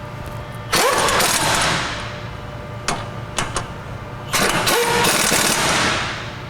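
Impact wrench tightening the caliper bracket bolts, run in two bursts of a second or more, each starting with a rising whine, with a few sharp clicks in between.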